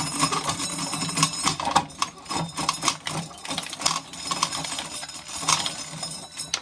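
Dried corn being shelled off the cob: a steady, dense crackling rattle of kernels breaking loose and dropping, which stops abruptly at the end.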